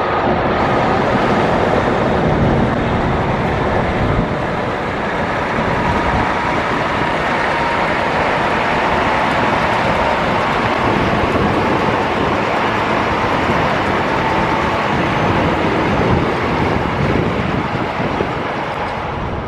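Steady road traffic noise, a constant wash of passing vehicles with no break.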